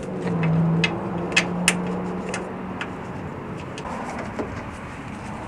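Irregular sharp clicks and clinks of hand tools and bolts being handled while the headlight assembly's mounting bolts are started, over a low steady engine hum from a vehicle in the background that fades after about half the time.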